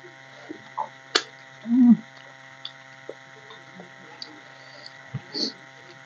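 Fingers mashing and mixing rice with mashed potato and dal on a steel plate: scattered soft squelches and small clicks, one sharper click about a second in. A steady electrical hum runs underneath.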